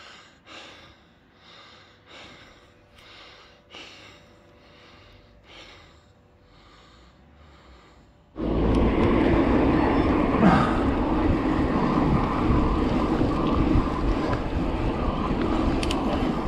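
Faint soft puffs about one a second, then about eight seconds in a sudden switch to loud, steady wind rushing over the microphone as the gravel bike rolls along a road.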